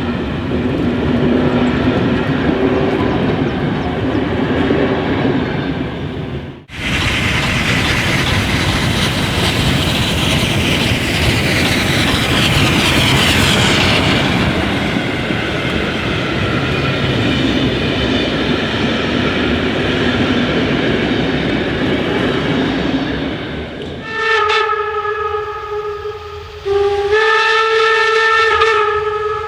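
A museum railway train running, with steady rolling rail noise and an abrupt cut about seven seconds in. Near the end the locomotive sounds two long, steady signal blasts.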